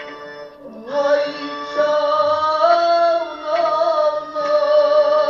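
Sung Kashmiri Sufi kalam: a melodic line of long, wavering held notes over a sustained accompaniment, coming in about a second in after a softer stretch.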